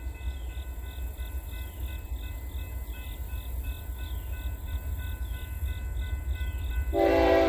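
Freight locomotive horn blasting suddenly about seven seconds in, over a low rumble that slowly grows as the double-stack train approaches. Before the horn, a faint high ring repeats about twice a second.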